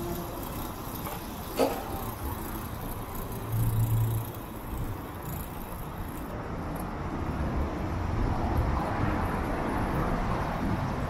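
Road traffic noise, growing louder from about seven seconds in. A single sharp click sounds about a second and a half in.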